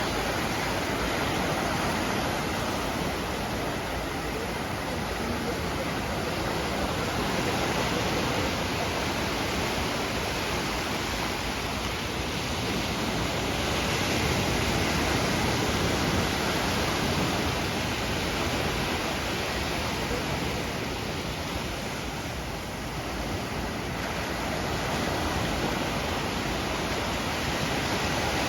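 Sea waves on a beach: a steady rush of surf that swells and eases slowly every several seconds.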